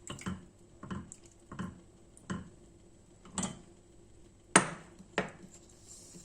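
Kitchen utensils and dishes being handled: a run of light knocks, then a sharp clink about four and a half seconds in and a smaller one just after.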